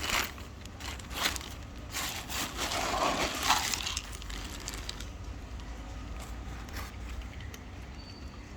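Crackling, rustling noises, loudest in the first half, then dying down to a quieter background.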